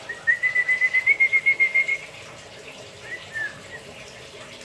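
White-rumped shama singing: a fast run of about a dozen even, clear whistled notes lasting about a second and a half, then a short falling phrase about three seconds in.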